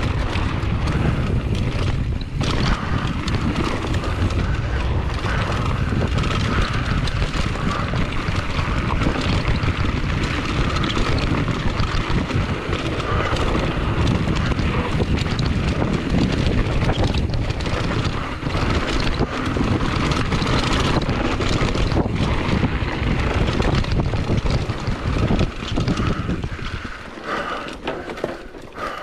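Wind buffeting the microphone as a mountain bike rolls fast down a dirt forest trail, with the tyres rumbling on the ground and the bike rattling and knocking over bumps. The rumble eases shortly before the end.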